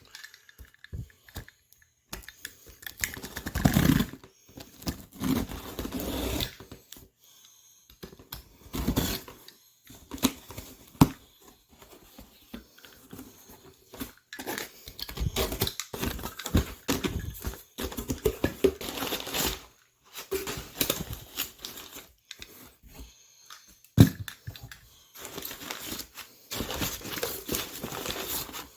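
A cardboard shipping box being opened and unpacked: packing tape tearing, and packing material crinkling and rustling in irregular bursts, with scattered clicks and a couple of sharp knocks.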